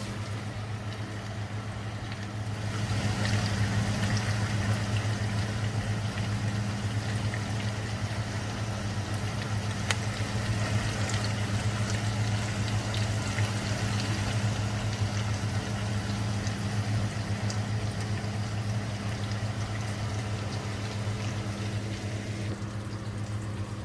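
Chicken drumsticks frying in a pan of oil, sizzling with small crackles. The sizzle grows louder a couple of seconds in and fades near the end, over a steady low hum.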